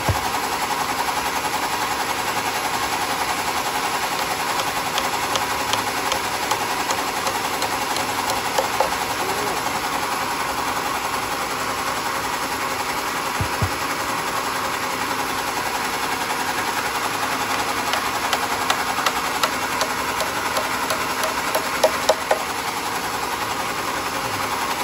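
Homemade sawmill running steadily, its blade cutting through a wooden plank, with a few short sharp knocks near the end.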